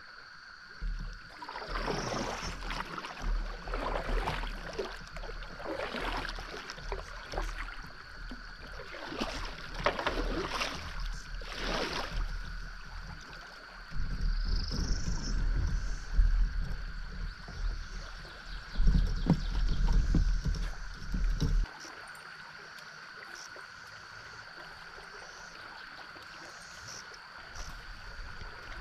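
Kayak paddle strokes swishing and splashing through the water, roughly one every two seconds, over a steady high-pitched whine. A spell of low rumble comes in about halfway through.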